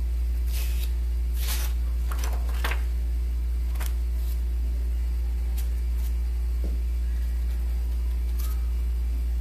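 A steady low hum throughout, with soft, irregular dabbing taps of a small stencil brush on painted fabric, a few in quick succession in the first three seconds and then more sparsely.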